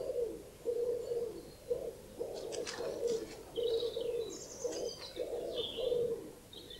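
Woodland birdsong: a low cooing call repeated over and over in short phrases, with higher chirps and twitters from small birds above it.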